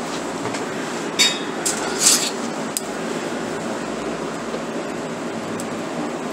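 Cabbage rolls being handled in an aluminium foil pan: a few sharp clinks and crinkles, the two loudest about one and two seconds in, over a steady background hiss.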